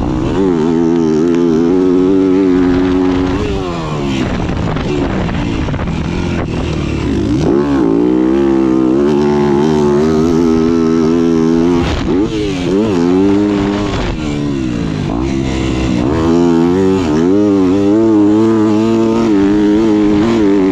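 Yamaha YZ250F's four-stroke single-cylinder engine, heard from on the bike while it is ridden hard: revs climb and drop again and again as the rider works the throttle and gears, easing off sharply a few times (around 3.5, 11.5 and 14.5 seconds in) and pulling back up.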